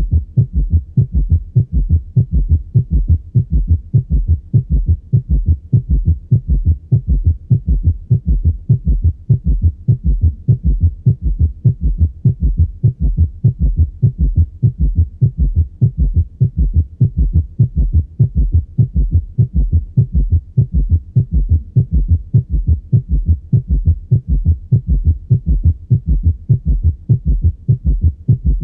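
Heart sounds heard through a stethoscope: a fast, steady summation gallop, in which the third and fourth heart sounds merge into one extra low thud in diastole beside S1 and S2. This is a sign of severe heart failure.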